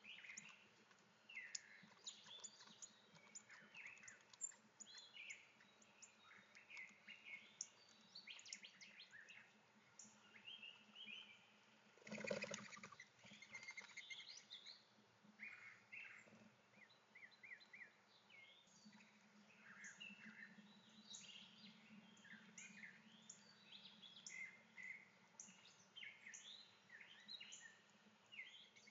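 Faint chorus of small songbirds, many short chirps and trills overlapping throughout. A brief louder rustling noise comes about twelve seconds in.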